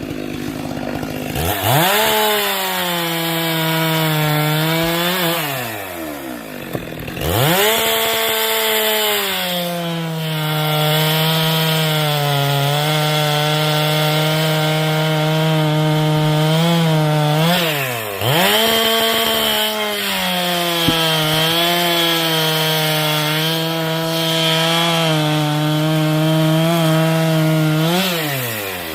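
Chainsaw cutting firewood. The engine revs up sharply to full throttle, holds there for several seconds with its pitch dipping a little as the chain works through the wood, then drops back. This happens three times.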